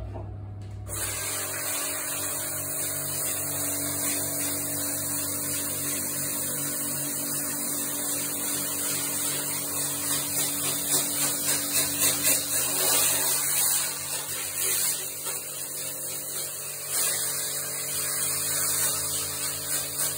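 Electric pressure washer starting about a second in, then running steadily: pump motor hum under the loud hiss of the water jet blasting a screen-printing screen's mesh, the hiss swelling and dipping in places as the lance moves across the screen.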